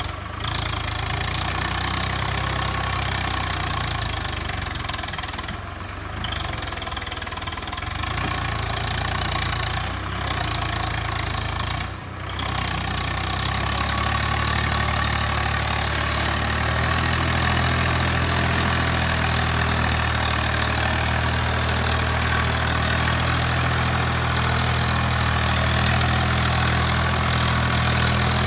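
Swaraj 744 FE tractor's three-cylinder diesel engine running steadily under load as it pulls a loaded trailer through deep mud. The level dips briefly a few times in the first half, then the engine runs a little louder and even.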